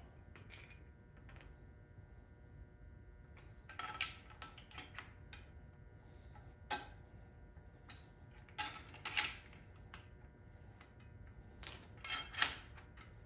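Loose metal suspension hardware clinking and clattering in several short bursts as a front strut rod is assembled, the loudest clatters about nine and twelve seconds in.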